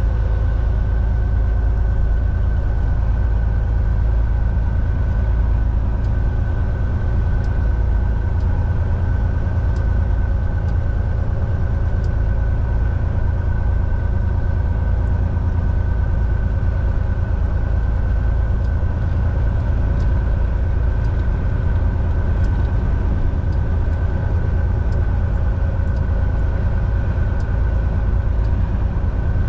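Semi-truck's diesel engine and drivetrain running steadily: a heavy low rumble with a steady hum above it, unchanging throughout.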